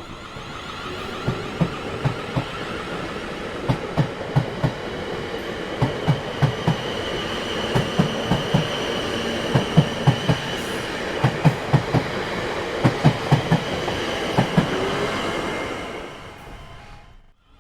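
Train rolling along the track: its wheels clatter over the rail joints in repeated groups of knocks above a steady rumble. It fades out near the end.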